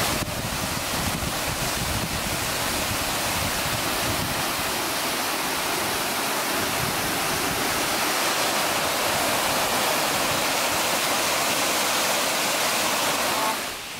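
Waterfall pouring steadily into a rocky pool: a dense, even rush of falling water, which cuts off shortly before the end.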